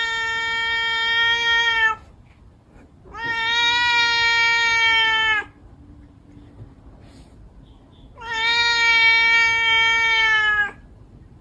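A cat giving long, drawn-out meows, three of them at a steady pitch with short pauses between. The first is already sounding at the start, the second comes about three seconds in, and the third a little past the middle.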